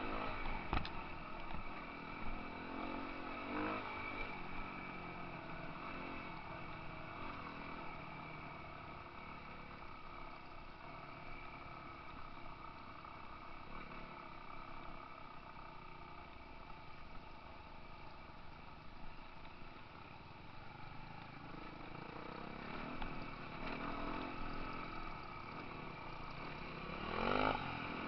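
Dirt bike engine running along a dirt trail, its revs rising and falling with the throttle, with a sharp rev-up near the end.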